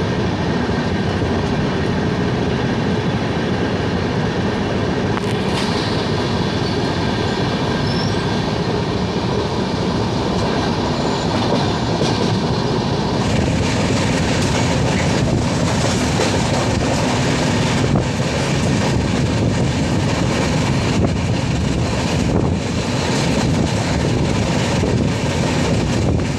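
A moving passenger train's wheels on the rails: a steady running rumble with clickety-clack over the rail joints, turning brighter and more clattery about halfway through.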